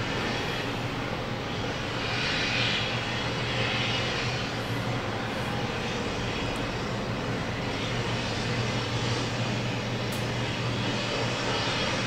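Diesel engine of a crawler-mounted pile-driver rig running steadily as it hoists a timber pile upright, a constant low hum with a brief swell of higher noise about two to four seconds in.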